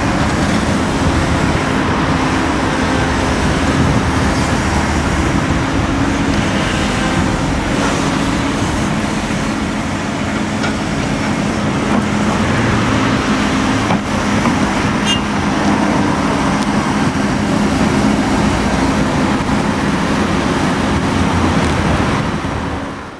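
Daewoo Solar 255LC-V crawler excavator's diesel engine running steadily under working load while it swings and dumps its bucket of soil. The sound fades out near the end.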